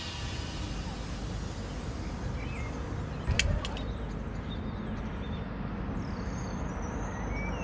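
Steady low outdoor rumble with one sharp thud about three and a half seconds in.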